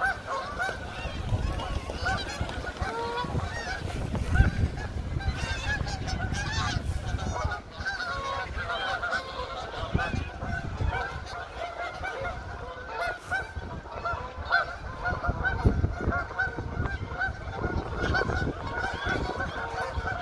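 A flock of Canada geese honking continuously, many overlapping calls at once, over a low rumble.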